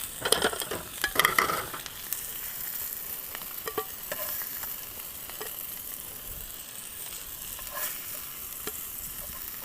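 Food sizzling as it fries in a pan, with a utensil clattering against the pan in the first couple of seconds, then a steady sizzle with occasional pops.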